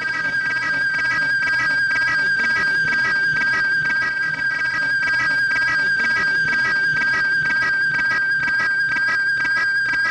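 Horror-soundtrack drone: a single high-pitched steady tone that never changes pitch, with faint irregular clicks beneath it.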